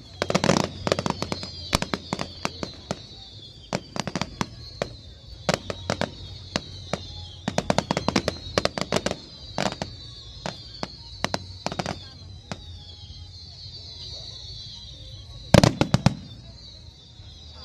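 Fireworks display: a rapid run of sharp bangs and crackles, with high whistles falling in pitch, and a loud cluster of bangs near the end.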